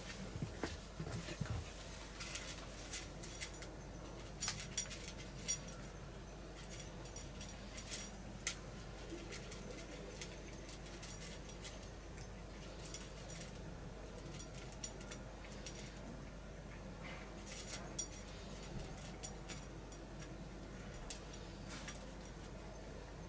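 Cat eating dry kibble from a stainless-steel bowl: irregular crunching and clicking as it chews, in scattered clusters.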